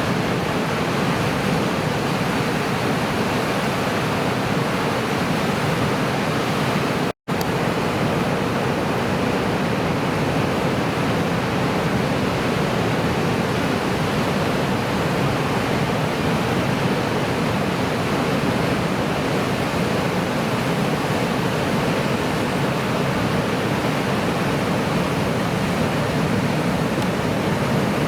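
Steady roar of ocean surf, with a brief cut to silence about seven seconds in.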